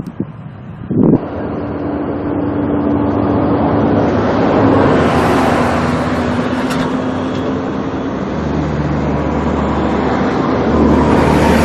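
Jet airliner's engines passing low overhead on landing approach: the noise swells over several seconds, with steady engine tones underneath that slide slightly lower in pitch. A sharp knock about a second in.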